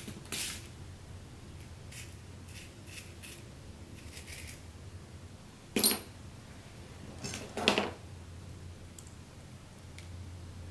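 Glass pieces and small tools being handled and set down on a cutting mat: a few faint clicks, then two sharper clatters, the first about six seconds in and the second a couple of seconds later.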